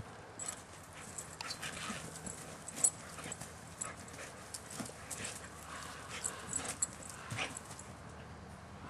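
Belgian Shepherd mother and her puppy playing: short dog whimpers among irregular scuffling and scraping of paws on the ground.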